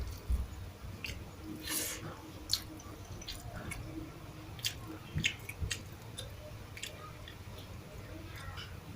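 Close-miked chewing of a mouthful of rice and sardines, with wet mouth clicks and smacks at irregular intervals.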